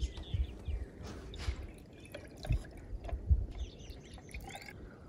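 Peach iced tea ladled through a fine mesh strainer into a jar of ice cubes: a trickle about a second in, then scattered drips.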